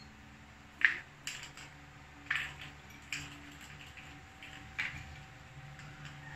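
A small cat toy clattering and skittering on a tiled floor as a cat bats it: about five sharp clicks and knocks, spread irregularly, the loudest about a second in.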